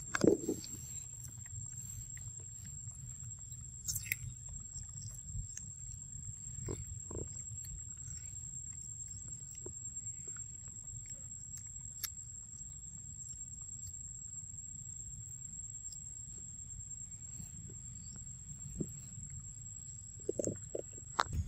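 Quiet outdoor ambience: a steady low rumble and a steady high-pitched whine, with a few faint scattered clicks and a short patch of rustling near the end.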